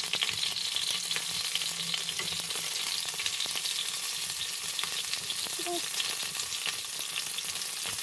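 Chicken wings frying in hot oil: a steady sizzle with many fine crackling pops.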